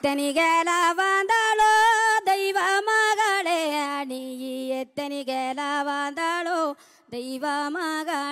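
A woman singing a folk melody unaccompanied, in long held notes with wavering ornaments, pausing briefly between phrases twice.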